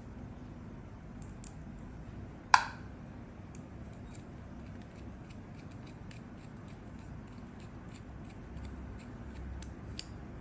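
Small metal ticks and clicks of screws and small tool parts being handled and screwed into a lockpick decoder, with one much louder sharp click about two and a half seconds in.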